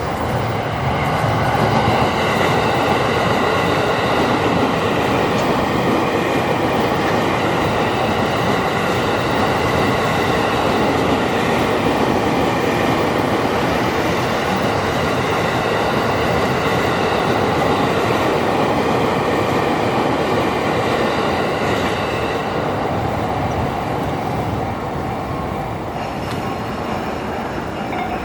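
Joban Line train running past a level crossing: a long, steady rush of wheels on rails with steady high-pitched tones over it, easing off in the last few seconds.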